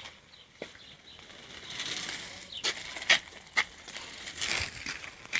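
A dog sneezing: two short, noisy bursts of breath, about two seconds in and again near the end, among a few sharp clicks.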